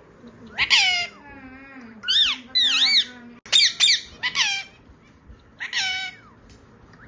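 Rose-ringed (Indian ringneck) parakeet calls: a string of about seven short, high, squawky calls, several sliding down in pitch, with short pauses between them.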